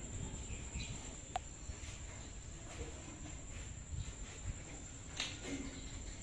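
Steady high-pitched drone of insects over a low rumble, with a sharp click about a second and a half in.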